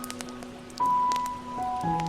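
Soft, slow piano music with a fireplace crackling beneath it in scattered sharp pops. A new, louder high note comes in just under a second in.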